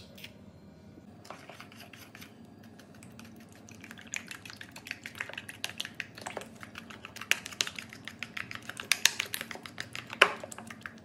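Metal spoon beating an egg into chocolate brownie batter in a ceramic bowl, clinking and scraping against the bowl's sides in a quick, uneven run of clicks that gets busier about four seconds in, with one louder knock near the end.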